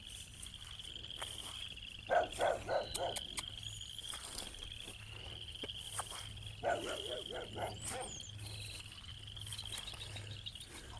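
A distant dog barking in two short runs of several barks, one about two seconds in and one near seven seconds, over a steady high trilling chorus.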